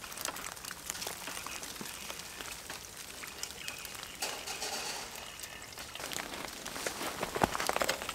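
Meltwater dripping from snow- and ice-laden trees: many small, irregular drips and taps, like light rain.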